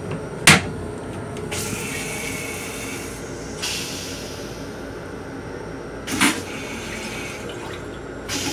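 Metro-North M7 railcar toilet flushing: a sharp click about half a second in, then water rinsing and running out of the stainless bowl, a second knock about six seconds in followed by more water, over the steady rumble of the train.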